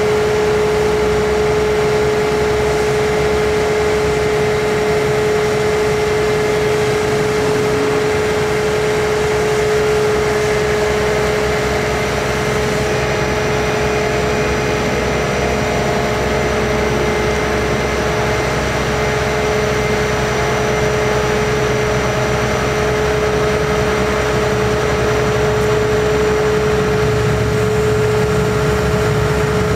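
Cummins ISC inline-six diesel engine of a bucket truck running steadily, driving the hydraulics as the aerial boom is operated, with a steady whine held over the engine's rumble.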